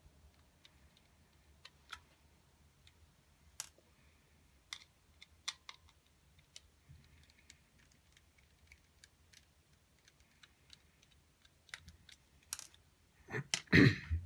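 Small clicks and taps of a screwdriver and fingers working the screws on the back of a plastic TV remote, scattered every second or so, with a louder clatter near the end.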